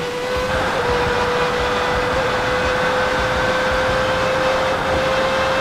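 Electric suction fan of an RC fan car spinning at a constant speed, a steady high-pitched whine, with a rushing hiss of air and driving noise that grows louder about half a second in as the car is driven hard.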